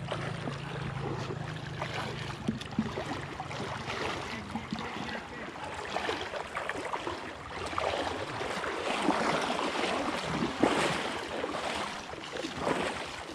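River water rushing and splashing, the splashes growing louder about eight seconds in.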